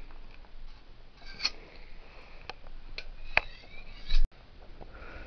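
A few sharp clicks in a quiet room, one with a short ring after it, then a loud bump that cuts off abruptly.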